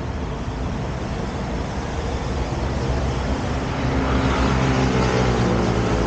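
Road traffic on a city street, cars passing with tyre and engine noise, growing louder in the second half as a vehicle's engine comes closer.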